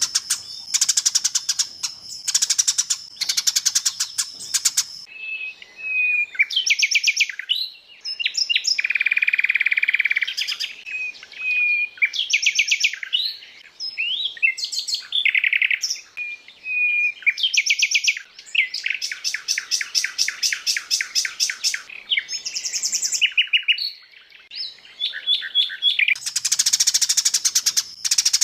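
Recorded songbird song from a mix of several species' calls strung together, played as a 'masteran' training track for caged birds. It runs through fast rattling trills, short whistled notes and a buzzy held note, one phrase after another.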